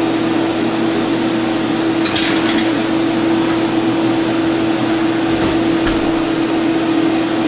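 Steady fan hum with a low drone, the kind of mechanical noise a kitchen fan makes. A brief metallic clatter about two seconds in comes from the tray of dough going onto the oven rack.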